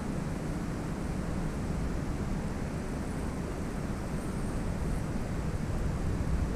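Steady low rumbling noise of wind buffeting the microphone, over the rush of flowing canal water.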